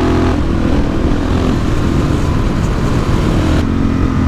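Suzuki DR-Z400SM supermoto's single-cylinder four-stroke engine running steadily under way, with heavy wind rumble on the microphone.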